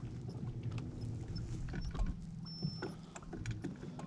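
Small waves lapping and ticking against a boat's hull, over the low steady hum of an electric trolling motor.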